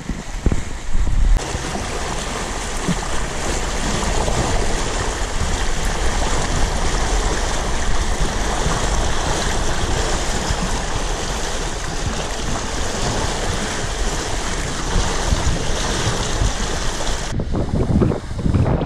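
Water rushing and splashing along a wooden cutter's hull as it sails, with wind buffeting the microphone. The sound shifts abruptly about a second in and again near the end.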